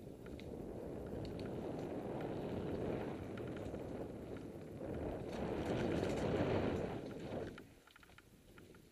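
Rushing noise of a mountain bike speeding down a dirt forest singletrack: wind buffeting the mounted camera's microphone and tyres rumbling over the trail. It dies down about seven and a half seconds in as the bike slows.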